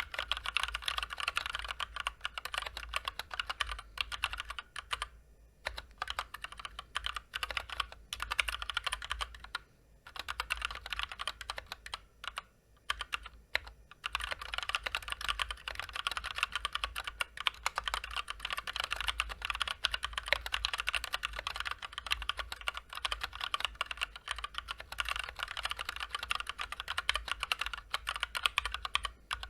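Continuous fast typing on a Drop Ctrl High Profile mechanical keyboard with stock Gateron Clear linear switches and double-shot PBT keycaps: a dense run of key clicks and clacks, broken by brief pauses about five, ten and thirteen seconds in.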